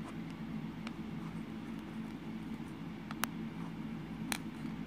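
A few light, sharp clicks of hard plastic as a doll and its small toy bowl are handled, over a steady low hum.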